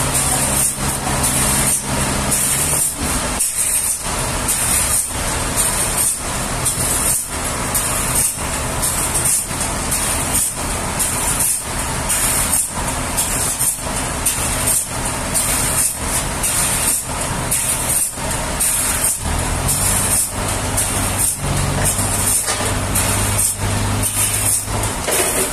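Sawmill machinery running: a loud, steady rushing hiss that dips regularly about one and a half times a second, with a low engine hum at the start and again near the end.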